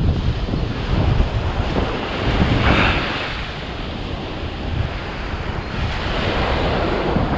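Ocean surf washing up a sandy beach, the wash swelling about three seconds in and again near the end, with wind buffeting the microphone.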